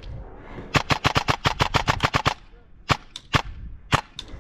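Airsoft rifle firing: a quick burst of about a dozen sharp shots, then three single shots about half a second apart.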